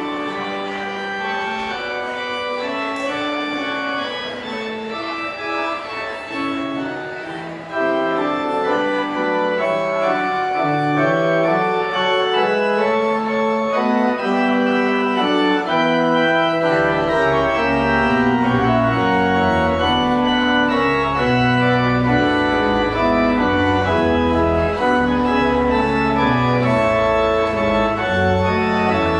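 Church organ playing the postlude: sustained full chords in a moving progression. It swells louder about eight seconds in, and deep pedal bass notes join about halfway through.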